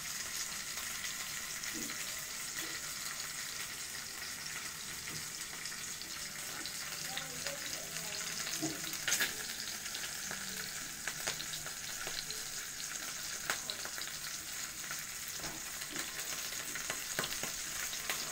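Mackerel frying in hot oil: a steady sizzle with scattered sharp pops and crackles.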